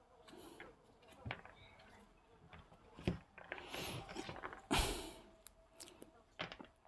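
Faint, scattered rustles and small clicks of hands crumbling paddy straw mushroom spawn into small pieces, with a short louder rustle about five seconds in.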